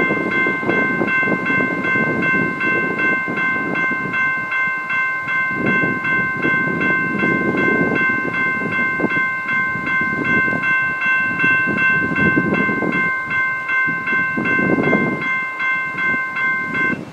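Railroad crossing bell ringing in rapid, steady strokes over the rumble of a long train of empty coal gondolas rolling past. The bell cuts off suddenly near the end.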